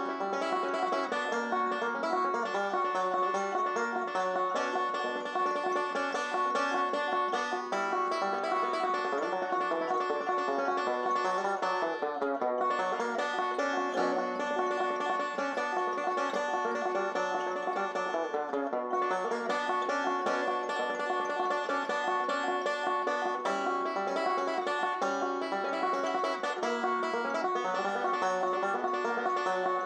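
Solo banjo playing a bluegrass instrumental: a steady, dense run of picked notes.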